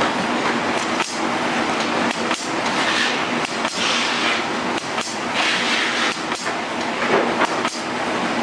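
Automatic L-bar shrink-film sealer running in a cycle: its sealing bar comes down on the film with regular knocks a little over a second apart. Hissing bursts sound between the knocks over a steady mechanical clatter.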